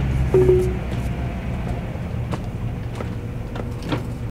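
Steady low engine and road rumble inside the cab of a moving 2018 Coachmen Leprechaun Class C motorhome. A brief squeak comes about half a second in, and a few light clicks and rattles come near the end.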